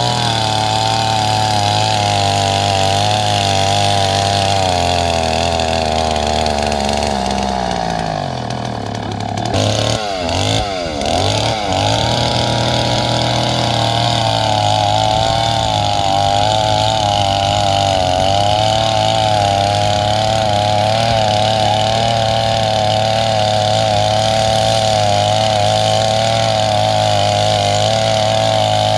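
Gasoline two-stroke chainsaw running at high speed as it cuts into a tree trunk. About eight seconds in the engine speed sags and swings down and up a few times, then it settles back into a steady high whine as the cut goes on.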